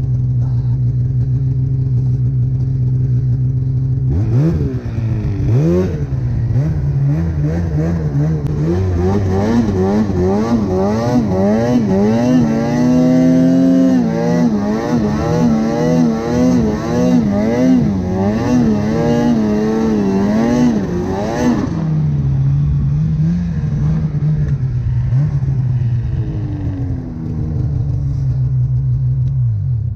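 Snowmobile engine running at a steady speed, then revving up and down over and over under changing throttle from about four seconds in. After some seventeen seconds of this it settles back to a steady lower speed, and it drops away at the very end.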